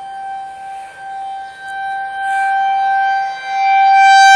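Outdoor tornado warning siren sounding a steady, single-pitch tone during a siren test, its loudness rising and falling and swelling to its loudest near the end.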